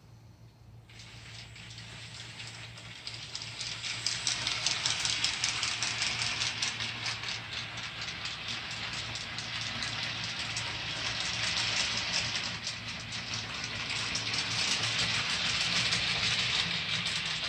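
Model streamlined steam locomotive running on the layout track: a hiss made of rapid, even pulses starts about a second in and grows steadily louder, with a steady low hum underneath.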